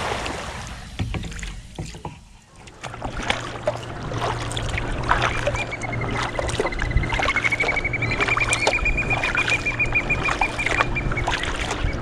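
Sea kayak paddle strokes: water splashing and dripping off the paddle blades as the kayak moves through calm water. A high pulsed trill, slightly wavering in pitch, runs for about five seconds in the middle, over a low steady hum.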